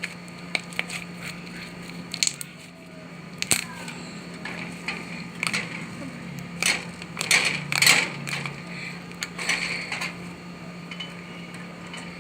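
Hands squishing and pressing a fluffy slime, making irregular clicks and crackly pops of trapped air that come thickest around the middle. A steady low hum runs underneath.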